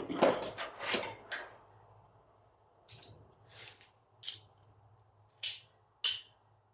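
Metal door closer being handled: a quick cluster of jangling metallic clinks and rattles in the first second and a half, then five separate short clinks spread over the rest.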